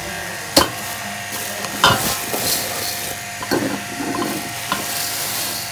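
Plastic bag of uncooked rice rustling and crinkling as it is handled, with a few sharp clicks and the grains shifting inside. A steady electrical hum runs underneath.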